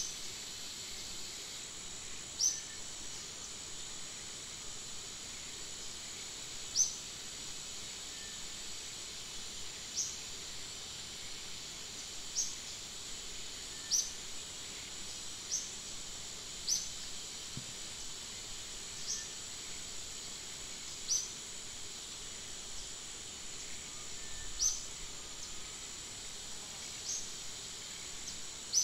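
Tropical forest ambience: a steady, high insect drone. Over it, a short, high chirp that falls slightly in pitch repeats every two to four seconds.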